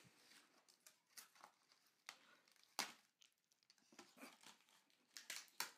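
Doll packaging being pulled apart by hand: faint crinkling and tearing of plastic and cardboard, with a few sharp clicks, the loudest near the middle.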